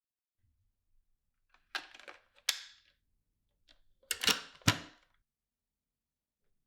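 Hard plastic parts of a Dyson V15 Detect cordless vacuum's clear bin being worked by hand: two short bursts of sliding and sharp clicks, about two seconds apart, as parts slide along and snap into place.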